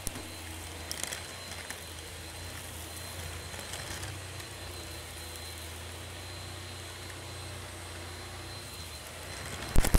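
Shark Rocket stick vacuum running steadily, heard close through headphones wrapped around its wand, with scattered ticks of cat litter being sucked up. A loud knock comes near the end.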